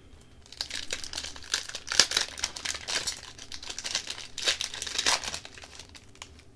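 Hockey card pack wrapper being torn open and crinkled by hand, a dense crackling that starts about half a second in and stops about a second before the end.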